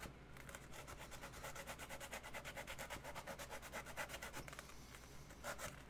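Rapid, even back-and-forth scraping of a hand tool against a foam costume piece, with a few harder strokes near the end.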